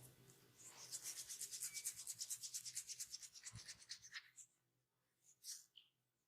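Rapid, rhythmic rubbing strokes of a massage, about eight a second, stopping about four seconds in; a couple of brief soft scrapes follow.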